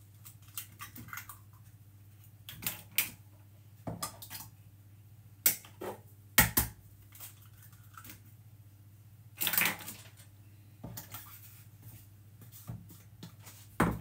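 Raw eggs being cracked open and the broken shells set down on the worktop: a string of short, sharp cracks and taps at irregular intervals, over a low steady hum.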